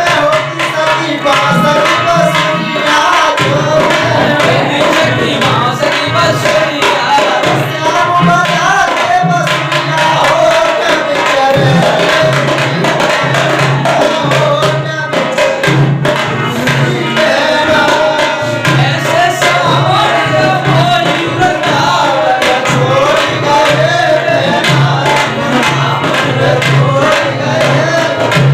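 Singing with tabla accompaniment in an Indian devotional song, a melodic line wavering over a steady drum rhythm.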